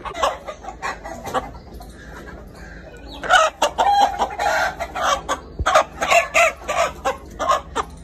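Chickens clucking, with a rooster crowing; the calls grow loud and busy about three seconds in.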